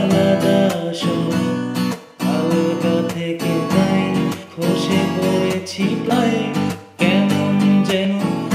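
Song music carried by a strummed acoustic guitar, in a steady rhythm with brief dips between phrases.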